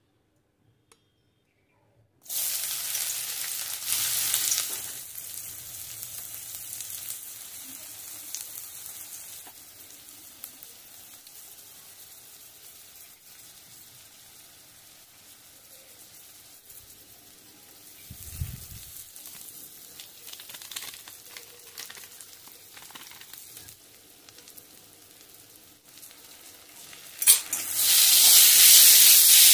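Chopped onion and green chillies frying in hot oil in a kadai, sizzling. The sizzle starts suddenly and loud, settles to a quieter steady frying with a spatula stirring the pan, then flares up loud again near the end.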